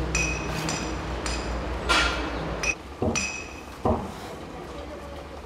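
Metal clinking: several sharp ringing clinks in the first three seconds, then a few duller knocks. A low steady hum underneath stops about halfway through.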